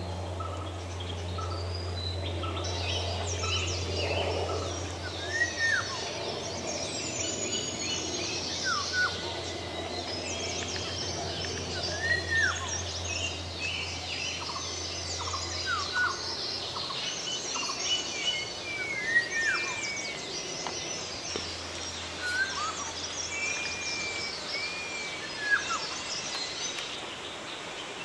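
Many wild birds calling at once in a dense chorus, with one louder whistle that swoops down recurring about every three seconds. A steady low hum runs underneath and drops out briefly past the middle.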